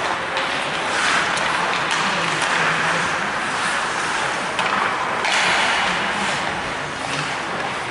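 Ice hockey play on a rink: skates scraping and carving on the ice, with scattered sharp clacks of sticks and puck, over a steady hall background with faint distant voices.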